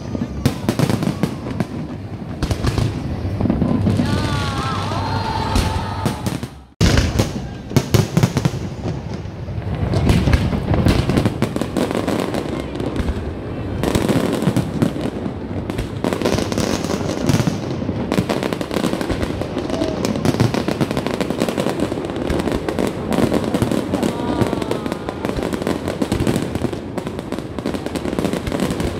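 Fireworks display: many shells bursting in rapid, overlapping bangs and crackles, with a sudden brief break about seven seconds in.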